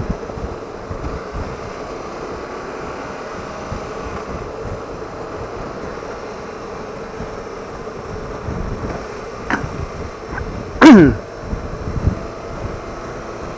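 A BMW R1200RT's boxer-twin engine running steadily at touring pace, under wind rush on the microphone. About 11 seconds in, one loud, short vocal sound falling sharply in pitch cuts over it, after two fainter short sounds.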